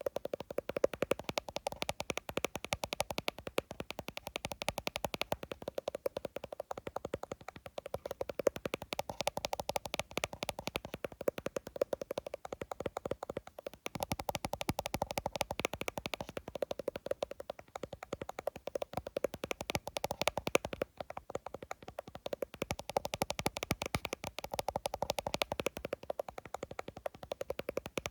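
Fast, continuous tapping on an iPhone, many taps a second without a break.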